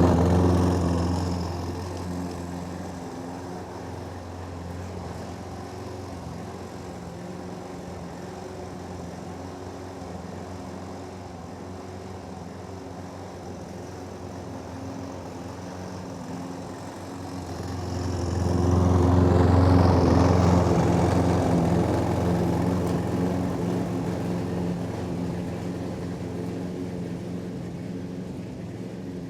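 Toro lawnmower engine running steadily while cutting grass, passing close by twice: loud and moving away in the first couple of seconds, coming close again at about 18–20 seconds, then slowly moving away.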